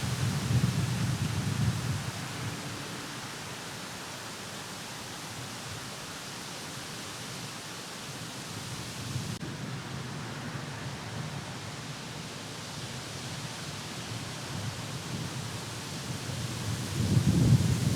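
Steady rain during a thunderstorm, with rolling thunder: one rumble dies away over the first two seconds and another swells up near the end.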